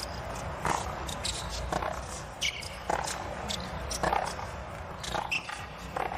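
Tennis rally on a hard court: sharp pops of racquets striking the ball and of the ball bouncing, coming every second or so over a low steady arena hum.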